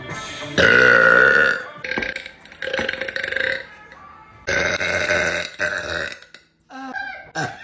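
A woman belching: two long burps, the first starting about half a second in and the second about four and a half seconds in, with shorter burps between.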